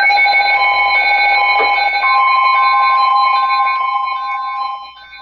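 Weather radio alert alarm sounding for an incoming special marine warning: loud steady alarm tones with a regular beeping pattern over them, starting abruptly and dropping to a much lower level near the end.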